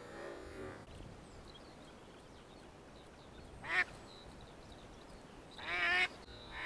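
Duck quacking over a marsh: a single quack about halfway through, then a quick run of several quacks near the end.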